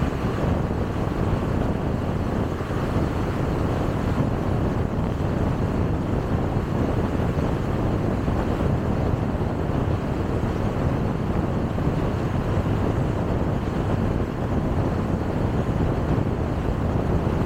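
A car driving steadily at road speed: a constant rush of tyre and wind noise that holds the same level throughout.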